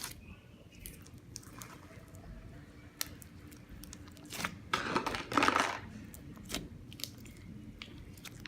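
A large mass of mixed slime being kneaded and squeezed by hand: wet squishing with scattered small clicks, louder for about a second halfway through.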